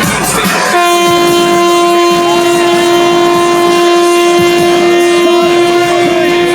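A horn sounding one long, steady blast at a single pitch, starting about a second in and held for about six seconds.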